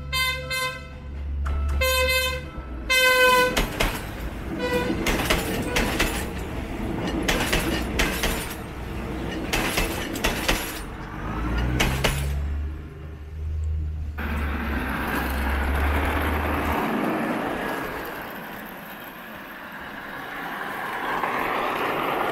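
Commuter train sounding its horn in several short toots, then passing with a clatter of wheels on the track over a deep rumble. About two-thirds of the way through, the clatter gives way to a steadier wash of noise.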